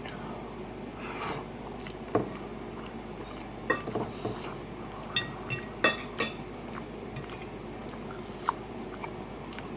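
A metal eating utensil clinking and scraping against a dish of chili and rice several times, each a short sharp click, some ringing briefly, with quiet eating sounds between.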